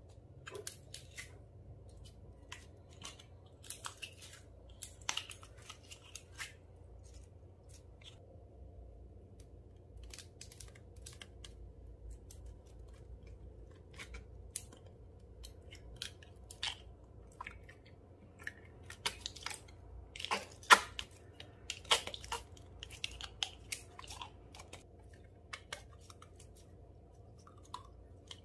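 Slime being squished and mixed by hand, giving irregular sticky crackles and small pops, with a louder cluster of pops about two-thirds of the way through.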